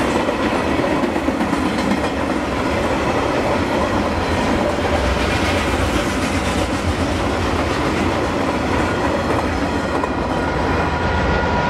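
Container freight train's wagons rolling past, wheels clattering over the rail joints with a steady low rumble. Faint high squealing tones come in toward the end.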